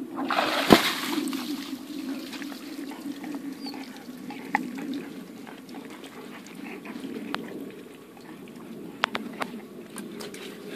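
Water splashing as a dog climbs out of an inflatable paddling pool, loudest about half a second in, followed by water trickling and dripping with a few small knocks.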